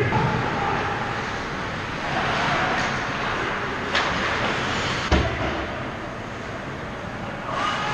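Ice hockey play: a steady scrape and hiss of skates on the ice, a sharp crack of stick on puck about four seconds in, and a heavier thud about a second later as the puck strikes something near the net.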